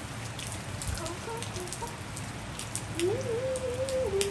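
Steady rain falling on a wet tiled rooftop, with scattered sharp drops hitting close by. About three seconds in, a brief wavering tone joins for about a second and a half.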